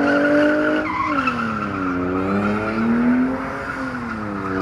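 A drift car sliding: its engine held at high revs, the pitch dropping about a second in and then rising and falling slowly with the throttle, over a continuous tyre squeal.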